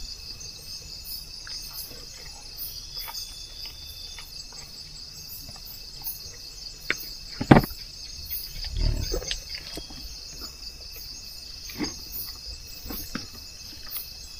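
Steady high chirring of night insects, with the small clicks and knocks of someone eating a meal: scattered light utensil clicks, a sharper knock about seven and a half seconds in and a duller thump just after.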